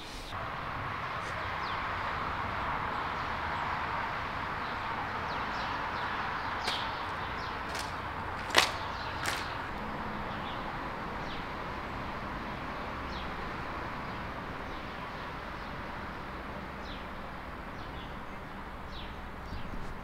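Outdoor ambience: a steady hiss with scattered short, high chirps. A sharp snap comes a little before halfway, with a smaller one just after.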